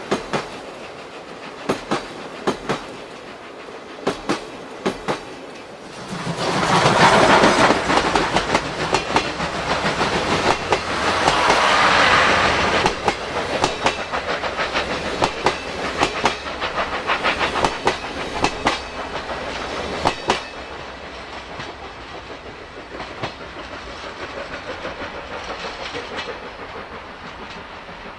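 Steam-hauled passenger train led by the C57 steam locomotive running past, its wheels clicking over the rail joints in a steady clickety-clack. It swells to its loudest for several seconds about six seconds in, then clatters on more quietly and fades away.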